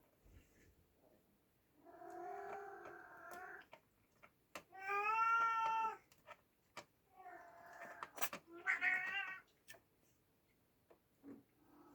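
Oriental Shorthair kittens meowing: several long, drawn-out meows, the loudest about five seconds in, with a few light taps and clicks between them.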